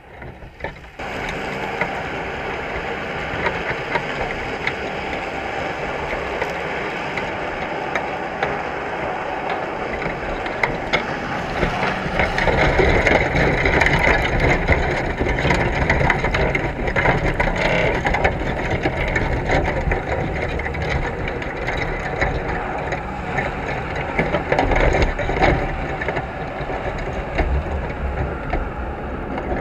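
Underwater clattering and scraping of a wire crab trap full of Dungeness crabs, a dense crackle of clicks and knocks heard through a GoPro's housing. It starts suddenly about a second in and is loudest in the middle, as the crabs and trap are jostled about.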